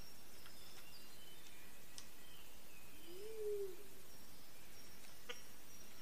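Forest birds calling: scattered thin, high whistled notes, and one low hooting note about three seconds in that rises and then falls. Two sharp clicks come a few seconds apart.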